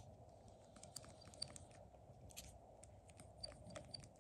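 Near silence: faint, scattered small clicks, a few a second, over a steady low hum.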